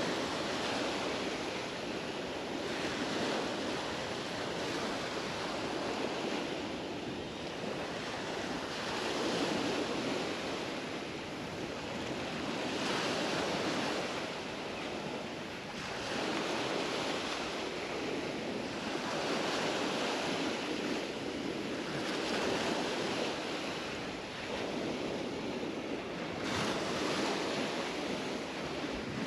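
Mediterranean sea waves washing onto the beach in a steady rush that swells and fades every few seconds.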